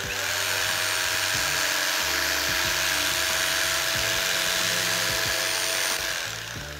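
Corded hammer drill with a paddle mixer running steadily, stirring thick cement repair mortar in a bucket. The motor whine falls away about six seconds in.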